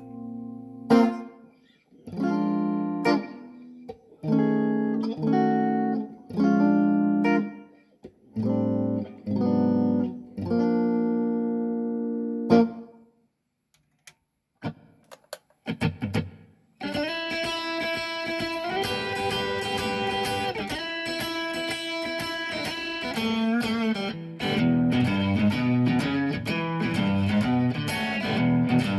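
Electric guitar played through a Kemper Player amp profiler: single chords struck and left to ring, with short gaps between them, then a pause about thirteen seconds in. From about seventeen seconds a continuous, brighter passage follows, dropping into a lower repeating figure near the end.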